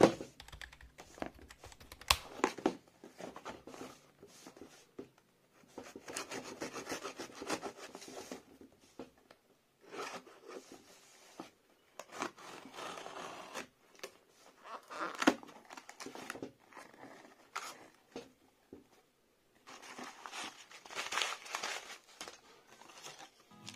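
Perfume packaging being opened by hand: tearing, crinkling plastic wrap and cardboard rubbing, in irregular bursts broken by sharp clicks and knocks.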